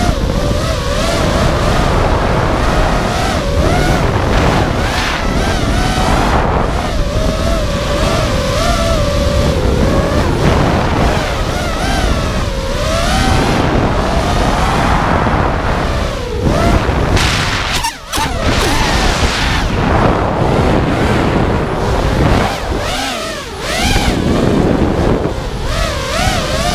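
Brushless motors and three-blade props of a 5-inch FPV racing quadcopter (T-Motor F40 2400KV) whining, the pitch swooping up and down constantly with the throttle, over a heavy low rumble of prop wash and wind on the onboard camera's microphone. About two-thirds of the way through, the sound drops out for a moment as the throttle is chopped.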